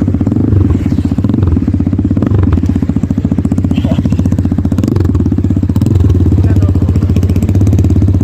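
KAYO T2 dirt bike's single-cylinder engine running steadily, with an even stream of firing pulses.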